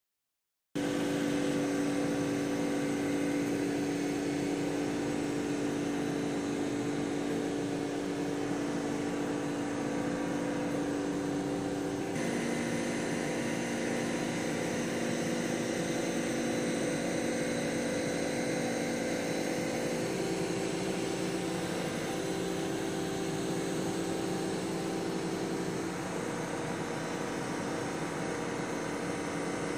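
Steady mechanical hum with several held pitches over a light hiss, starting abruptly under a second in; its pitches shift slightly about twelve seconds in and again later.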